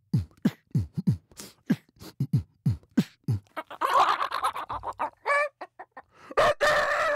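A man beatboxing: a steady run of mouth-made kick-drum thuds with clicks between them, about three a second. A hissing, scratchy stretch follows about four seconds in, and near the end a loud held buzzy vocal tone.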